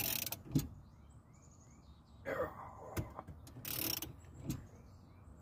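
Ratchet cranking a steering wheel puller's forcing screw at high torque against a steering wheel rusted onto its shaft: a few sharp metal clicks a second or two apart, with short hisses between them. Faint bird chirps sound behind.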